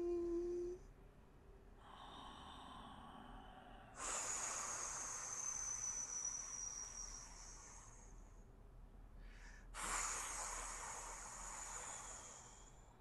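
A man blowing out hard through pursed lips in two long breaths, of about four and three seconds, each with a faint whistle in the rush of air. A softer breath comes about two seconds in, and a steady hummed tone cuts off just under a second in.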